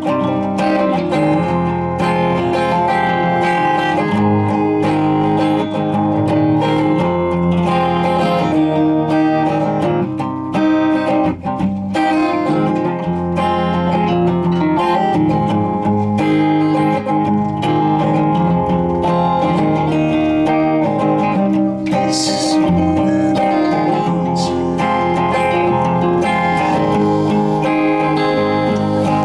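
Live rock music: the instrumental intro of a song, carried by sustained, strummed guitar chords, with no singing yet.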